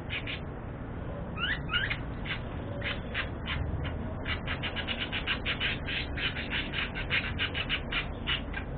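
Budgerigars chirping: scattered short chirps and a couple of rising calls, then a fast, steady run of chirps, several a second, through the second half.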